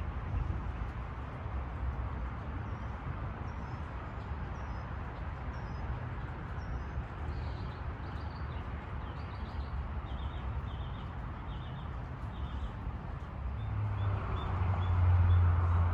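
Small birds chirping in short repeated calls, some paired, over a steady low outdoor rumble. Near the end a louder low rumble builds up.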